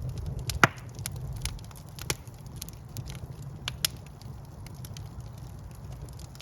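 Wood fire in a fireplace burning with a low rumble and irregular sharp crackles and pops from the logs, the loudest pop about half a second in.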